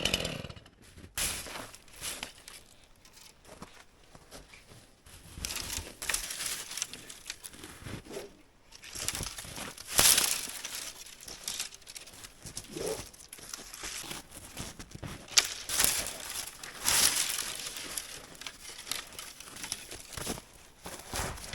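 A STIHL MS 261 C-M chainsaw dies away in the first moment, then irregular crackling and rustling of branches and dead brush, with a few louder snaps and swishes.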